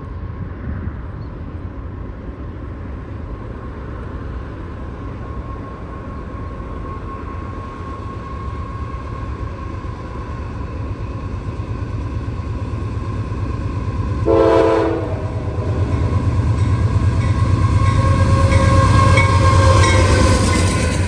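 Train rumbling past, the rumble building in the second half, with one short locomotive horn blast about two-thirds of the way through.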